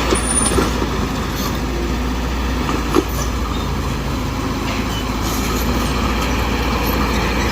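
BD2G crawler bulldozer working: its diesel engine runs steadily under a dense clatter of steel tracks, with one sharp knock about three seconds in.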